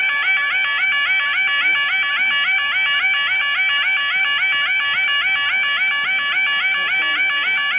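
Level crossing audible warning alarm sounding: a loud electronic yodel that sweeps up and down several times a second without a break.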